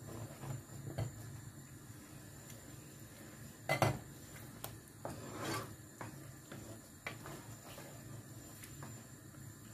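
Wooden spoon stirring thick tomato sauce in a frying pan, scraping and rubbing against the pan with scattered light clicks. There is one sharp knock of the spoon on the pan about four seconds in, the loudest sound, and a longer scrape just after.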